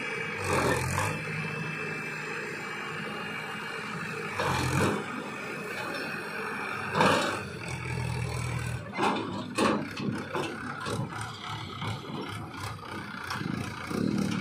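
Swaraj farm tractor's diesel engine running as it tows a tipping trailer with its bed raised. It is broken by scraping knocks now and then, the loudest about halfway through.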